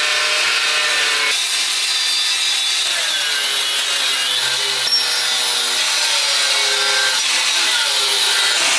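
Handheld angle grinder cutting through a steel propane-tank end cap: a steady, loud grinding hiss of the wheel in the metal, with the motor's whine wavering as the load on it changes.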